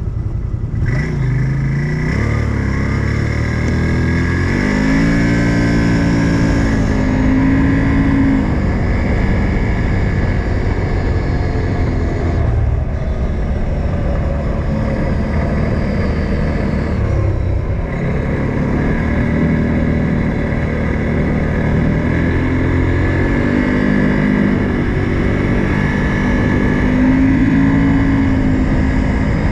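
Odes 800 off-road vehicle's engine running under load, its pitch rising and falling as it revs up and eases off, over a steady rush of noise.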